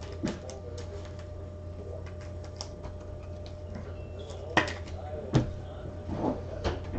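Light scattered clicks and taps of hands handling small objects, with two sharper knocks about four and a half and five and a half seconds in, over a steady low hum.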